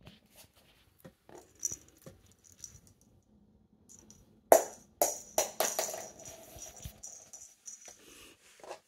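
Jingling cat toy ball being batted and rattling across a wooden floor: scattered light clicks, then a sharp knock about halfway through followed by several quick clatters and a thin jingle that rings on for a few seconds.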